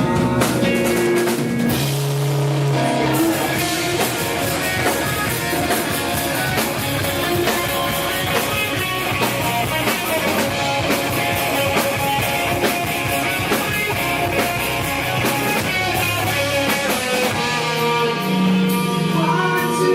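Rock band playing at full volume: distorted guitars over a drum kit, with steady drum hits all through.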